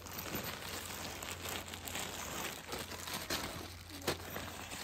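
Rustling, crinkling noise with scattered sharp clicks over a low steady hum.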